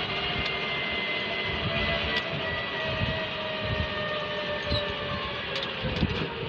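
Metro train running, its electric drive giving a whine of several steady tones that slide slowly down in pitch over a rumble.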